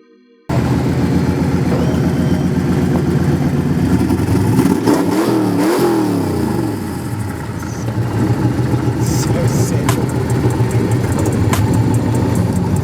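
Vehicle engine running loudly, revved up and back down twice about five seconds in, then running on steadily, with a few sharp clicks near the end. The engine is most likely the lifted 2013 Chevy Silverado 1500 pickup's.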